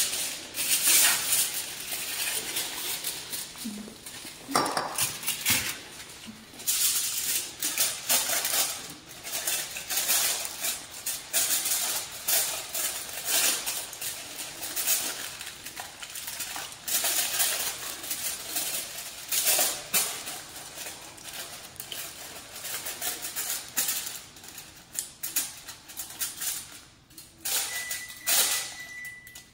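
Aluminium foil torn from the roll and crinkled as it is pressed over a glass baking dish: irregular crackling rustles with light knocks of the dish on the counter. A short, thin, steady beep sounds near the end.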